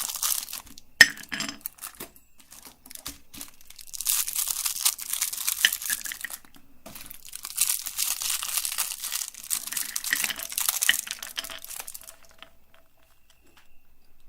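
Crinkling, crunching noise in three long bursts with scattered clicks between them, dying away about twelve seconds in.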